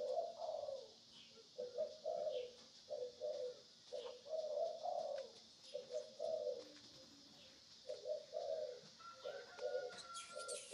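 Pigeons cooing, a low coo repeated about once a second in short runs, with a few light clicks near the end.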